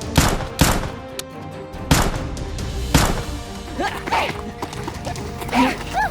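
Four sharp gunshot-like blasts in the first three seconds over background music, followed by a couple of short pitched cries.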